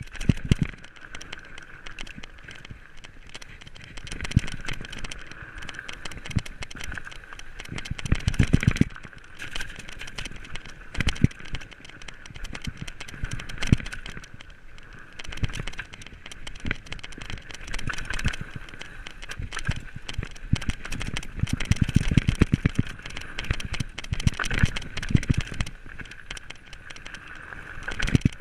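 Fat bike riding fast down a rough, stony trail: continuous rattling and clattering from the bike, tyres crunching over loose gravel, and heavy thumps as the wheels hit rocks and bumps, with two rougher spells of hard jolts.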